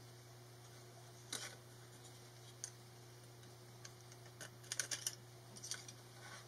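Faint small plastic clicks and ticks as a screwdriver pries the circuit board and CR2032 coin cell out of a garage door remote's plastic case: a couple of single ticks, then a quick run of clicks from about four seconds in.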